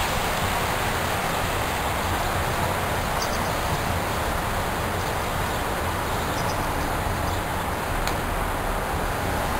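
Steady rushing noise at an even level, with a few faint, short high sounds about three and six seconds in.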